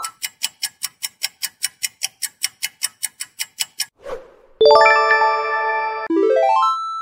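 Quiz-show sound effects: a countdown timer ticking at about four clicks a second for four seconds, then a short whoosh and a bright chime held for about a second and a half as the answer is revealed, ending in a quick rising run of notes.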